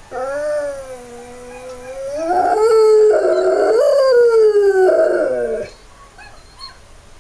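Rottweiler howling: one long howl that starts softly with a slowly falling pitch, swells louder about two seconds in, wavers up and down, then slides down in pitch and stops about two thirds of the way through.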